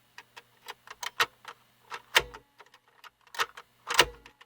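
Irregular clicks and knocks of hard plastic parts being handled, with the sharpest near the middle and near the end: a radio's binding control knob, which was catching on the edge of the plastic case, being worked and pushed back onto its shaft.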